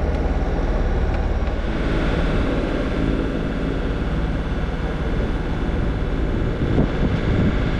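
Inboard diesel engine of a Valiant 40 sailboat running steadily while motoring, a low, even hum.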